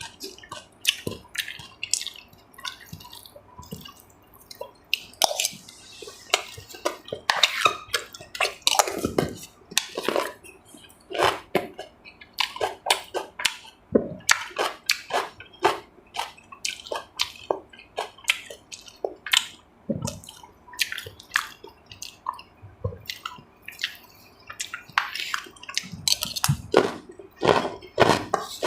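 Close-miked eating: wet chewing and slurping of braised catfish and clam soup, with many irregular short clicks and smacks.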